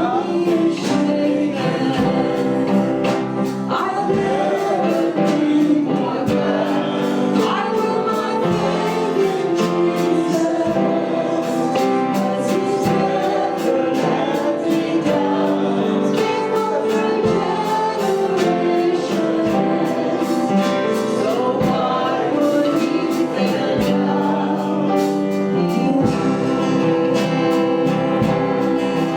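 Worship song sung by a group of voices to instrumental accompaniment with a steady beat.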